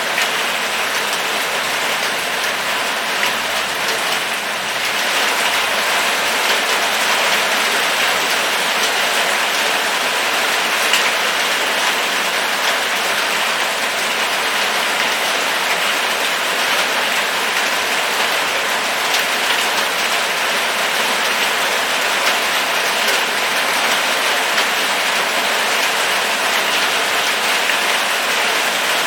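Steady, heavy rain falling, a dense hiss peppered with the ticks of individual drops, getting a little heavier about five seconds in.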